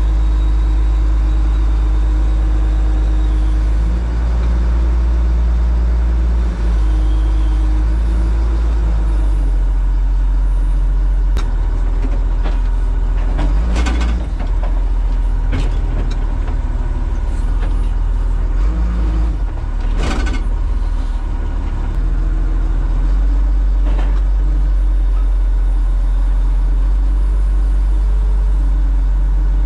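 Wheel loader's diesel engine running loud from inside the cab as the machine is driven, its speed stepping up and down several times. A few sharp knocks come partway through.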